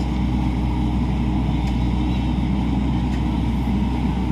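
Excavator's diesel engine running steadily under heavy load as its arm strains to shift a large fishing boat. The machine is working hard.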